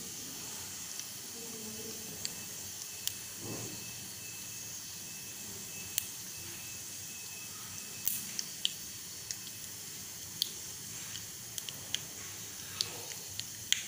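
Mustard and cumin seeds in hot oil in a small pan, tempering for a tadka. There is a steady sizzle, and the mustard seeds spluttering give sharp pops, scattered at first and coming more often in the second half.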